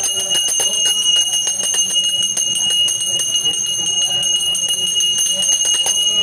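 Brass hand bell (puja ghanta) rung quickly and continuously: a steady high ringing over rapid strikes of the clapper.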